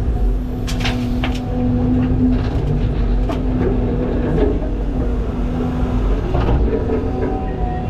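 CAT 323 excavator's diesel engine running steadily under working load, with several sharp clanks and knocks scattered through it. A reversing beeper starts beeping near the end.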